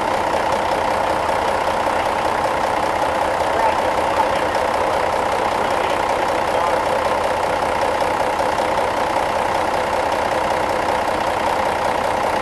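An engine idling steadily, an unchanging drone with no rise or fall in speed.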